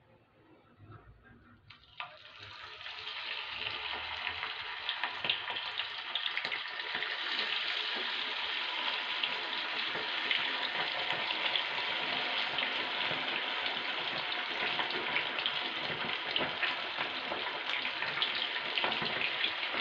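Marinated chicken kabab pieces deep-frying in hot oil in a pan: the sizzle starts suddenly about two seconds in as the first piece goes in and builds over the next few seconds into a steady, crackling sizzle as more pieces are added.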